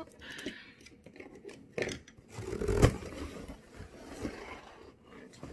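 A cardboard box being handled and opened: its flaps scrape and rustle, with two sharp knocks about two and three seconds in.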